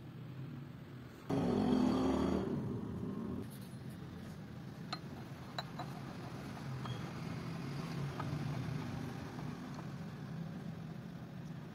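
Light metal clicks as motorcycle crankshaft parts are set onto a steel assembly jig, over a steady low workshop hum. About a second in, a louder rough noise of unclear source starts suddenly and lasts about two seconds.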